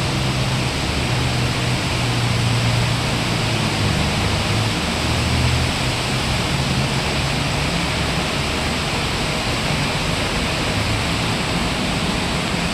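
Heavy rain pouring steadily in a rainstorm, a loud continuous hiss, with a low rumble underneath.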